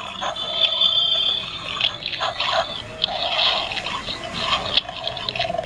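Sound-sensor animated skeleton dog Halloween decorations playing a raspy, throaty sound effect through their small built-in speakers, over and over.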